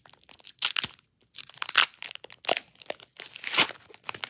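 Foil Pokémon TCG booster pack being torn open and crinkled by hand: crackling tears in several bursts, with a short pause about a second in and the loudest tear about three and a half seconds in.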